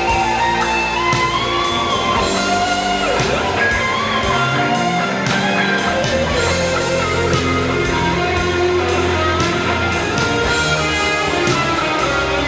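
Electric guitar, a Stratocaster-style solid-body, playing a sustained lead melody with bent notes over drums and a low bass line.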